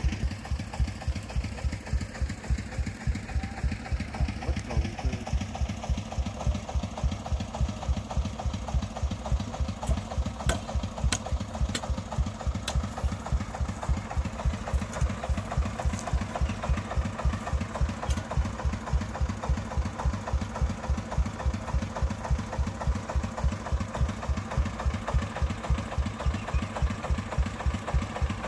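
Single-cylinder diesel engine of a loaded three-wheeled công nông farm truck idling with a steady, even chugging beat. A few short sharp clicks come in around the middle.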